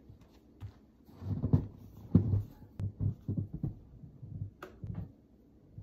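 Rubber boots trudging through deep snow: a run of soft low thuds, about two a second, starting about a second in and growing fainter as the steps move away.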